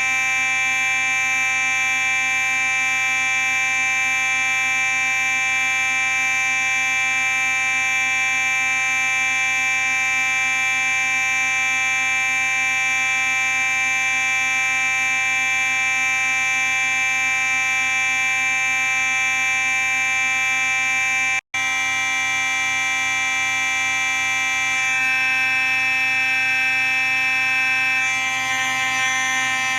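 Simplex 4903-9838 fire alarm horn sounding a continuous, buzzy tone at a steady level, broken by a split-second dropout about two-thirds of the way through.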